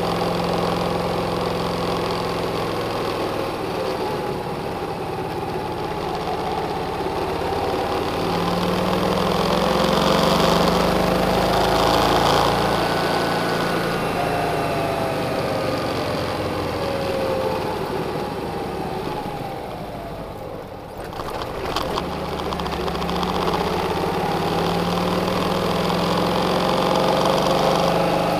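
Engine of the vehicle carrying the camera running while driving, its pitch rising and falling repeatedly with acceleration and gear changes. About two-thirds of the way through it drops away briefly, with a couple of clicks, then picks up again.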